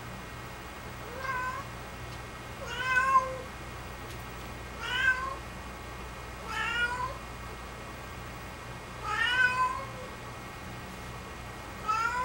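Domestic cat meowing repeatedly: six drawn-out meows about two seconds apart, each rising in pitch.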